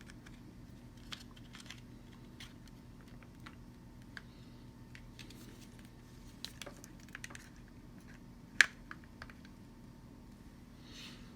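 Scattered light clicks and taps of small parts and tools being handled during a power-cord repair, with one sharper click about eight and a half seconds in, over a faint steady hum.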